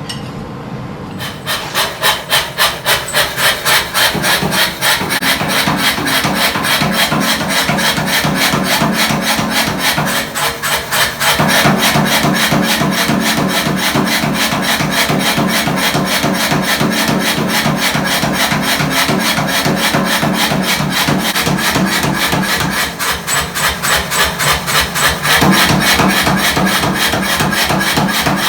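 Fast, evenly spaced strokes on the hot steel Damascus billet, about four to five a second, keeping up the same rhythm throughout after starting about a second in.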